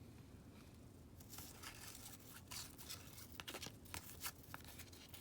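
Baseball cards being handled and slid past one another: a quiet, irregular string of papery swishes and light clicks that starts about a second in.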